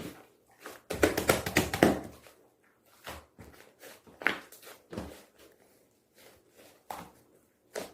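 Slime being worked by hand: a fast run of wet squishing clicks about a second in, then scattered single clicks and pops as it is pressed and poked.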